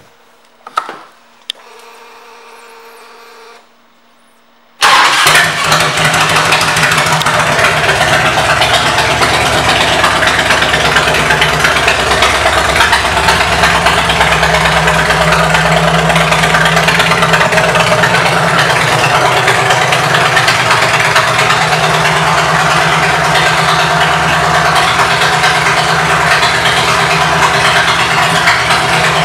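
1999 Harley-Davidson Ultra Classic's Twin Cam 88 V-twin with an aftermarket Vance & Hines exhaust. A few clicks and a short faint hum come first, then about five seconds in the engine starts and runs at a loud, steady idle.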